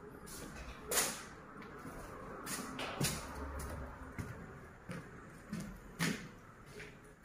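Scattered sharp knocks and clicks at uneven intervals, the loudest about a second in and again near three and six seconds.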